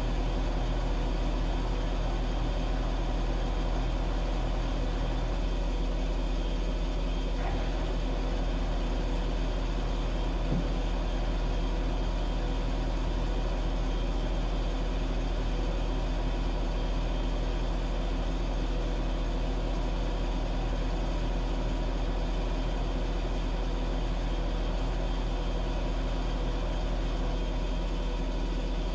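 Washing machine running with a steady low motor hum and several steady tones. A faint knock comes about seven seconds in and another about ten seconds in.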